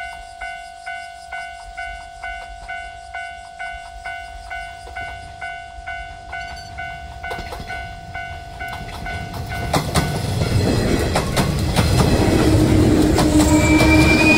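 Level crossing warning bell dinging about two and a half times a second, then a JR 115 series electric train running close past, its wheels clacking over rail joints, with a horn sounding near the end.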